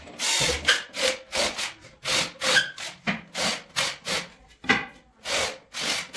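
Cordless drill boring into a wooden strip in short repeated bursts, about two a second.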